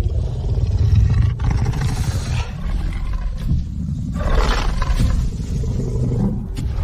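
Dinosaur roar sound effect: a deep, rumbling roar, then a second, brighter roar about four seconds in.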